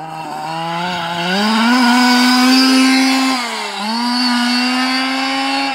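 Two-stroke petrol engine of a Losi 5IVE-T 1:5-scale RC truck running under throttle. Its pitch climbs about a second in and holds high, dips briefly near four seconds, then picks up again.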